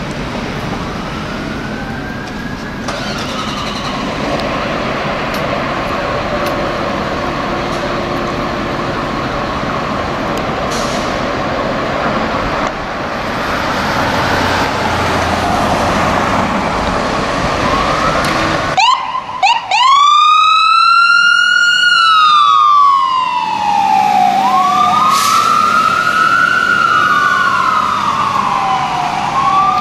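Pierce fire engine running in its station bay, a steady engine noise with a faint siren wailing up and down in the background early on. About two-thirds of the way in the sound changes abruptly to the engine's own electronic siren, loud and close, wailing up and down in long sweeps with some faster sweeps after.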